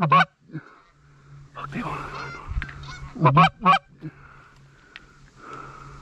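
Canada geese honking: a loud short honk at the start, a cluster of calls about two seconds in, a loud pair of honks a little past three seconds, and fainter honking near the end.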